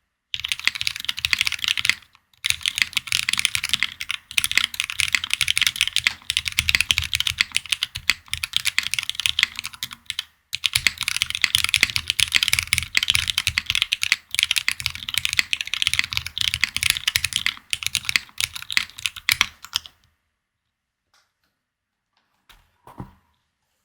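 Fast continuous typing on a Haven 65 mechanical keyboard with aluminium plate, GMK Katakana keycaps and lubed Cherry Hyperglide Black linear switches: a dense run of keystrokes with brief pauses about two and ten seconds in. The typing stops about twenty seconds in, leaving near silence with a few faint taps near the end.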